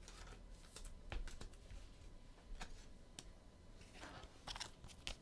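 Faint, scattered clicks and a brief rustle of trading cards and their packaging being handled.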